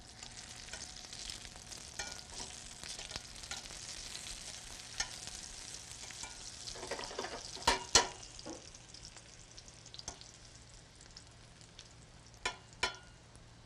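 Eggplant slices sizzling as they sauté in olive oil in a stainless steel skillet, the sizzle fading toward the end. A few sharp clacks cut through it, the loudest about eight seconds in and two more near the end.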